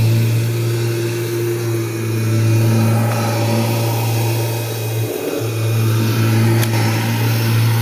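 Kirby Generation 3 upright vacuum cleaner running with a steady motor hum, which dips briefly about five seconds in.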